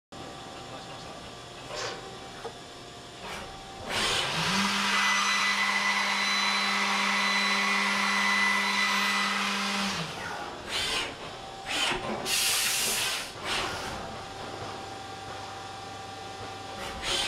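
A HORKOS NJ60 vertical machining center face-milling a metal block: after a faint hum, the spindle tone rises and settles as the face mill cuts for about six seconds with a loud steady cutting noise, then stops. Several short mechanical noises and a sharp blast of air follow as the tool is changed, and the machine goes back to a steady hum.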